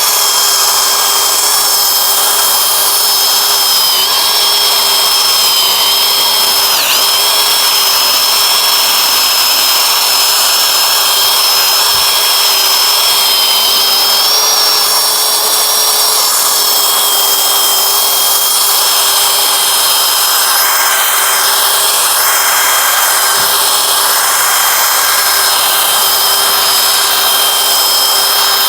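Power sander running steadily, sanding a plastic headlight lens with a 1200-grit disc: a steady whine over the rasp of the abrasive, its pitch dipping briefly about seven seconds in as it is pressed harder.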